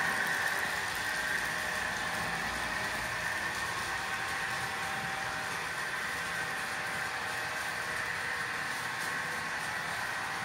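Model railway train running on the layout: a steady electric whir with a faint hum, a little louder in the first second.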